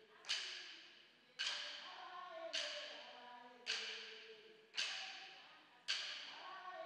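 Wooden sticks struck sharply in a steady beat, about one strike a second, six in all, each with a long echoing tail. A woman's voice chants between the strikes.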